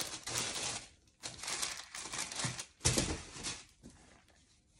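Wrapping tissue paper crinkling and rustling in irregular bursts as it is pulled back inside a cardboard gift box, with the sharpest crackle about three seconds in. It quietens near the end.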